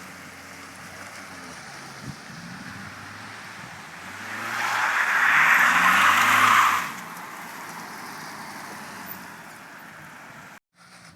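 Mazda MX-5 Miata's four-cylinder engine revving up and down as the car drifts on wet pavement. A loud hiss of tyres on the wet road swells about four seconds in, peaks as the car comes close, and falls away about three seconds later; the sound cuts off abruptly near the end.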